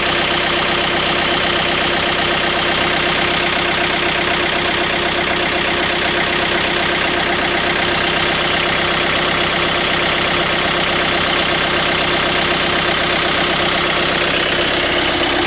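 John Deere 110 loader-backhoe's diesel engine idling steadily while it warms up after a cold start in freezing weather.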